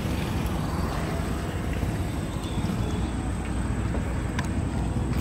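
Steady low rumble of a Hero motorcycle being ridden: engine and road noise with no change in pace.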